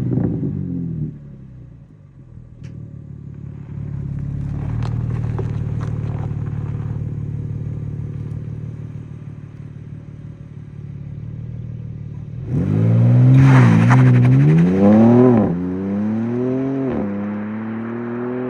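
BMW M2 G87's twin-turbo inline-six on its stock exhaust: the revs drop away about a second in, it runs steadily at low revs, then several quick rising and falling revs come about two-thirds of the way through, the loudest part, with one more near the end.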